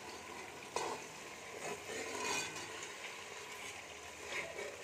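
A steel spoon stirring and scraping chicken masala that is frying in oil in a metal pot, with a soft sizzle; the masala is almost fully fried, with the oil separated onto the surface. A knock of the spoon against the pot about a second in.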